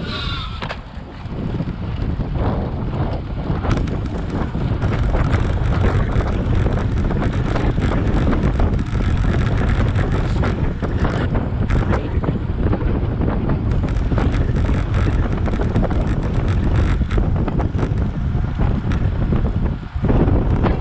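Wind rushing over the microphone of a camera on a moving road bike, a steady low rumble. It dips briefly about a second in, then holds steady.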